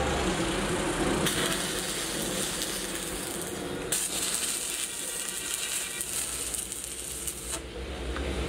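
Arc welding at the steel bucket edge: a dense, crackling high hiss that starts about a second in, gets louder about four seconds in, and cuts off near the end.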